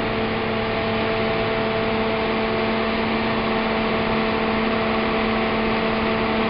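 John Deere combine running while unloading corn: a steady mechanical drone with a constant hum in it.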